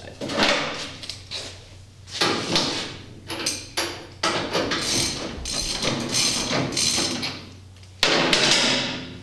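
Metal clanks and scrapes of a jack and its steel handle as the center jack under the cart is worked down, in an irregular run of knocks, the loudest starting suddenly about eight seconds in.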